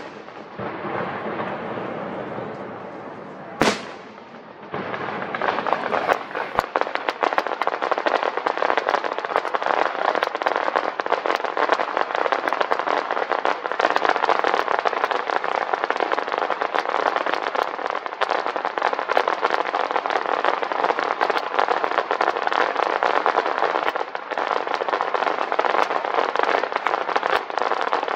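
Aerial fireworks display: a single sharp bang about four seconds in, then a dense, continuous crackling of many small reports from golden crackle shells bursting over the water.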